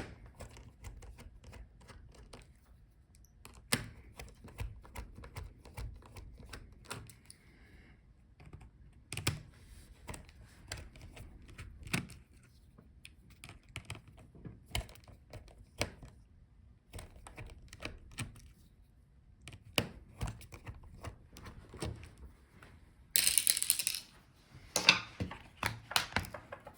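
Scattered light clicks and taps of a small screwdriver and metal hinge screws as a laptop's display hinges are unscrewed and parts are handled. About 23 seconds in there is a louder scraping or rustling sound lasting about a second.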